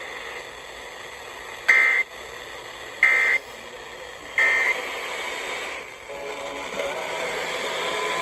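Weather radio receiver hissing, with three short, loud two-tone data bursts about 1.3 seconds apart: the SAME end-of-message code that closes an emergency alert broadcast, here a severe thunderstorm warning.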